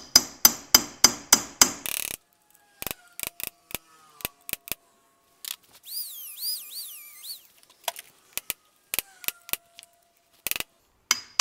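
A hammer striking a steel punch set against an old wheel bearing inner race on the hub, about four ringing metal strikes a second for the first two seconds, then scattered lighter taps. In the middle comes a short high whine that rises and falls as a Dremel cutoff wheel cuts into the race, and there are more sharp metal taps near the end. The work is cutting and cracking the stuck inner race off the hub.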